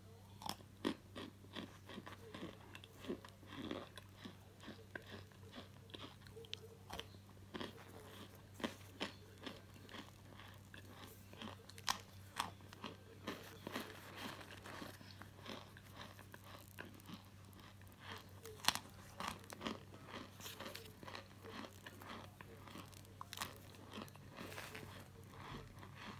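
Dry chunks of white starch crunching: an irregular run of short, sharp crackles, several each second, over a faint low hum.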